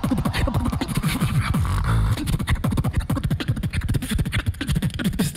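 Human beatboxing into a handheld microphone: a fast run of deep kick-drum sounds with sharp snare and hi-hat clicks, and a short held buzzing bass note about two seconds in.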